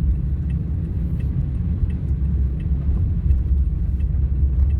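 Car driving on a snow-covered road: a steady low rumble of engine and tyres heard from inside the cabin.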